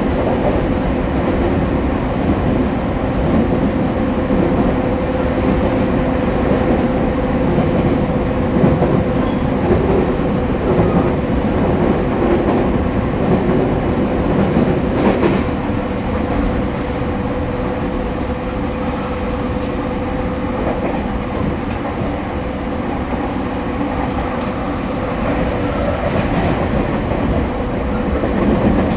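Running noise inside a JR East E231-series commuter train car while under way: a steady rumble of wheels on rail with a steady hum running through it.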